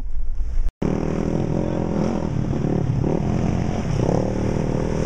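A 2002 Range Rover's 4.6-litre V8 running, its pitch rising and falling with the throttle. Under a second in, a short stretch of cabin rumble cuts off sharply before the engine takes over.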